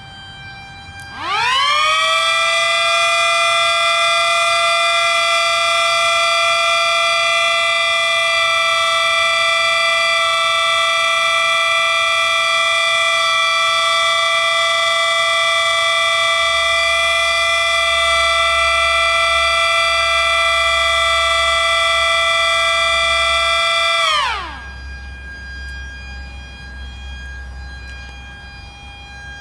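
A close siren winds up fast about a second in, holds a loud, steady chord of several tones for over twenty seconds, then winds down quickly. A fainter, distant siren tone holds steady underneath before and after it.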